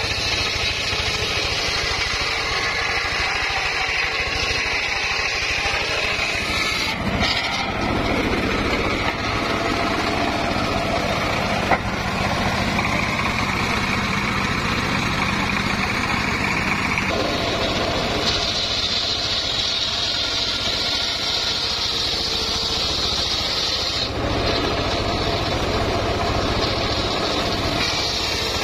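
Homemade engine-driven circular saw bench running steadily and ripping logs into timber, the engine and blade noise shifting in pitch abruptly a few times. A single sharp knock about twelve seconds in.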